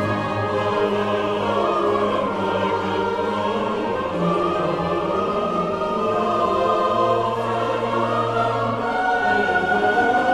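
Pipe organ playing slow, sustained chords over a held bass note.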